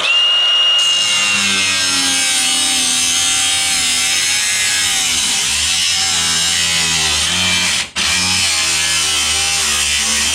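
Abrasive cut-off wheel cutting through the sheet steel of a car's rear quarter panel and the patch panel over it: a steady, harsh grinding with a high whine in the first second or two. It breaks off for an instant about eight seconds in, then carries on.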